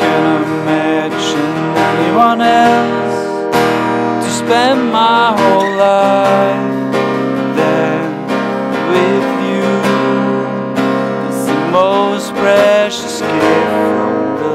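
Acoustic guitar played live, strummed chords ringing under a melody that slides between notes.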